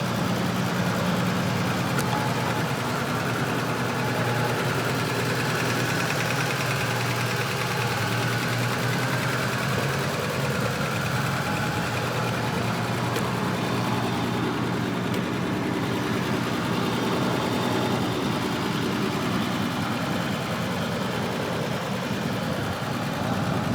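Volvo 164's B30 straight-six engine idling steadily.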